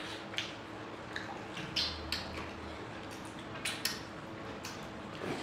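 Close-up eating sounds of two people eating mutton curry and chitau pitha (rice pancakes) by hand: wet chewing and mouth smacks, coming as irregular short clicks several times a second.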